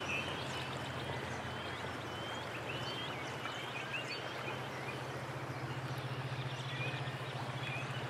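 Steady rushing of a shallow river, with a low steady hum beneath it and scattered short bird chirps throughout.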